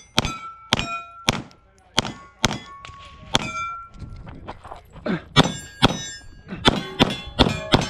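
Rapid 9mm pistol shots from a Glock 45, each followed by the ring of struck steel targets. The shots come in quick strings, with a pause of about two seconds in the middle and a faster run near the end.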